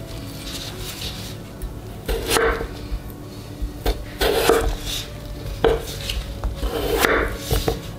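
Chef's knife slicing through raw peeled potatoes and knocking on a wooden cutting board: several separate cuts, irregularly spaced, the first about two seconds in.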